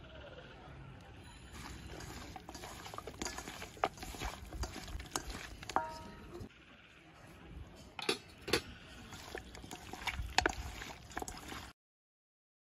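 Raw chicken pieces being mixed by hand with lemon juice, flour and spices in a steel bowl: wet squelching with many sharp clicks. It cuts off abruptly about a second before the end.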